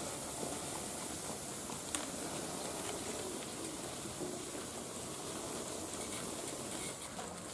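Sika deer eating feed from a trough: a steady crackling, rustling noise, with one sharp click about two seconds in.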